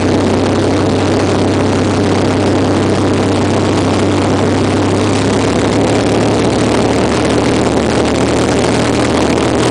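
Light single-engine propeller aircraft's engine and propeller running steadily, heard from inside the cockpit, with a loud rush of noise over a deep hum. The hum shifts slightly in pitch about halfway through.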